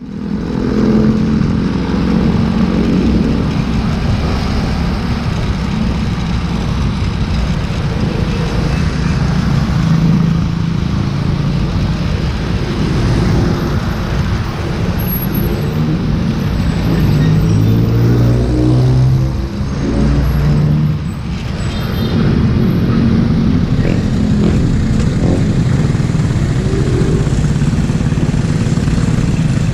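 Motorcycle engine running while riding through city traffic, its note shifting up and down with speed over steady road and wind noise, with a brief lull a little past two-thirds through.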